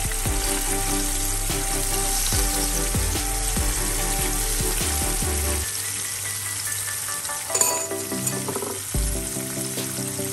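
Flour-coated anchovies sizzling steadily as they shallow-fry in hot oil in a pan, with one brief sharper sound about two-thirds of the way through.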